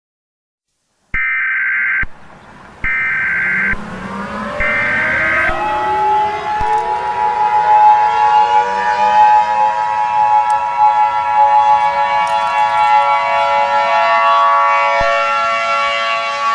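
Three roughly one-second bursts of Emergency Alert System (SAME) header data tones. Then several civil defense sirens wind up together, their pitches rising over a few seconds and levelling off into a loud, steady chord of tones.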